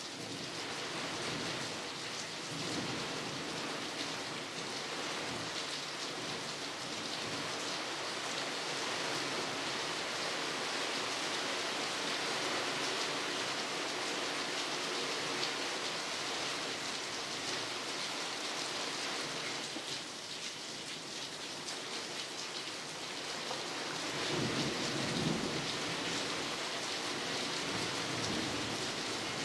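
Thunderstorm: rain falling steadily, with a low rumble of thunder swelling a few seconds before the end.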